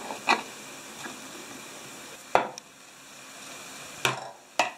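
Kitchen knife knocking against a wooden cutting board while cucumber is sliced into strips: a few separate sharp knocks with quiet between them.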